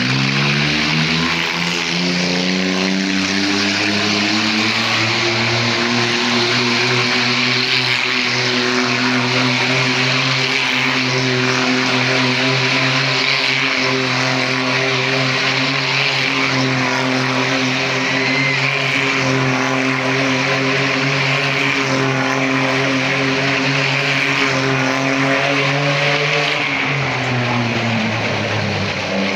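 Small car's engine held at high revs as it circles the vertical wooden wall of a well-of-death drum, a steady drone that climbs in pitch over the first couple of seconds and drops back near the end.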